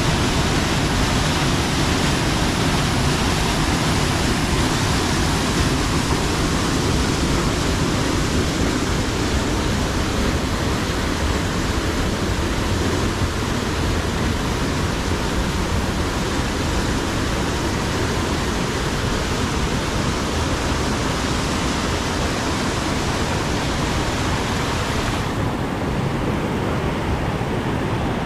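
Muddy floodwater rushing in a swollen rocky creek, pouring over a rock ledge and churning through rapids in a loud, steady rush. About 25 seconds in, the hiss suddenly thins and the sound turns duller.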